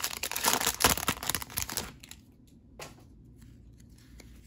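Foil booster pack wrapper of a Yu-Gi-Oh! card pack crinkling as it is torn open, for about the first two seconds, loudest about a second in. Then only quiet handling of the cards, with one faint tap near three seconds.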